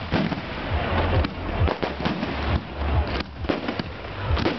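Fireworks display going off: a rapid, irregular series of bangs and crackles with a low rumble underneath.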